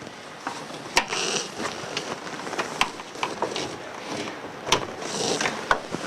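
Sharp clicks and knocks of a wrench against plastic push-in hose fittings as clear hoses are released and pulled off a valve, with two short scraping rustles about a second in and near five seconds in.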